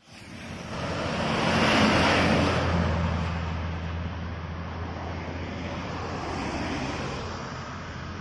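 Diesel coach bus passing close and pulling away, its engine drone and tyre noise loudest about two seconds in and then fading, with a steady low engine hum continuing.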